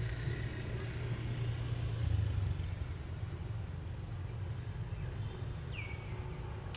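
A low steady rumble, loudest about two seconds in, with one short high chirp that falls in pitch near the end.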